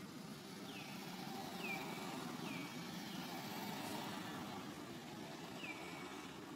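Steady low rumble, like an engine running, with four short high chirps that each drop in pitch and level off.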